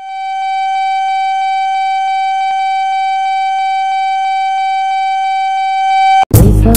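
A steady electronic tone with overtones fades in and is held, with faint regular ticks under it, then cuts off suddenly near the end, where loud hip-hop music with a heavy bass beat starts.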